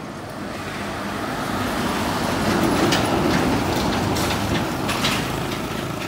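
Heavy fuel tanker truck driving past on an asphalt road, its engine and tyre noise growing louder to a peak about halfway through, then easing slightly.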